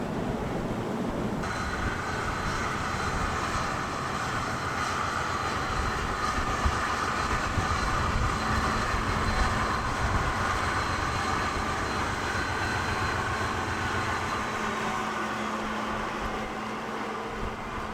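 Wind buffeting the microphone over a steady mechanical drone with a thin high whine that starts about a second and a half in and slides down in pitch near the end.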